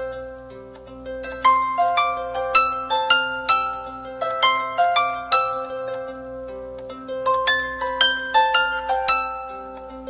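Background music: plucked string notes in quick upward runs, each note ringing and fading, over held low tones.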